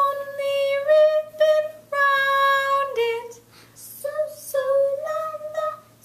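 A child singing a short sol–la–mi solfège tune in a high voice, a string of held notes with brief breaks between them.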